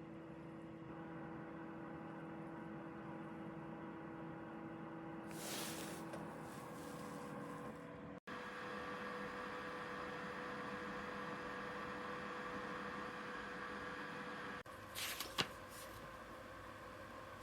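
EasyAcc 1200 ml portable dehumidifier running with a steady hum, its tone shifting slightly after a sudden cut about halfway through. A few sharp clicks come near the end.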